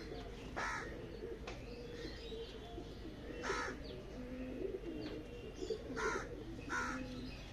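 Domestic pigeons cooing in a loft, a steady low wavering murmur, with about five short, higher bird calls breaking in over it.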